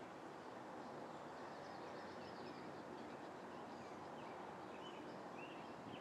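Faint outdoor ambience: a steady low hiss of background noise with scattered faint bird chirps.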